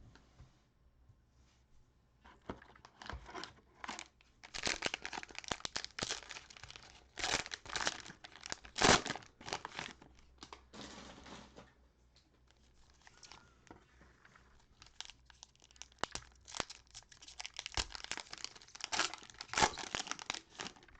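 Cellophane wrapper of a basketball-card cello pack being torn open and crinkled, in two bouts of crackling with a lull between.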